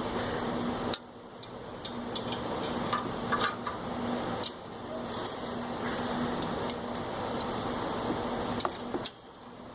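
Light metallic clinks and taps of brake parts and hand tools being handled during a brake pad change, over a steady low hum. A few clinks come close together about three seconds in.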